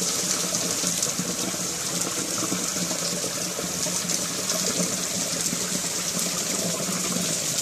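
Heavy rain pouring down onto a concrete courtyard and tiled roofs: a steady, dense hiss of falling water and splashing.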